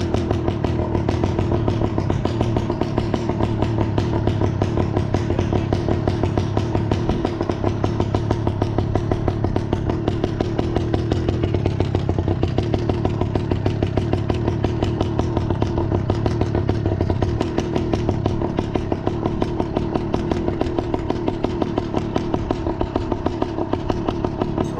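Small two-stroke engine running steadily with a rapid, even buzzing beat, easing slightly about two-thirds of the way through.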